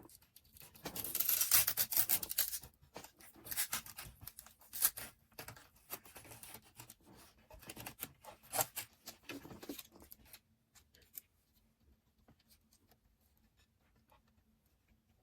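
Hand-handling noises of PC cables and case parts: irregular rustling, scraping and clicking, busiest in the first few seconds and dying away after about ten seconds.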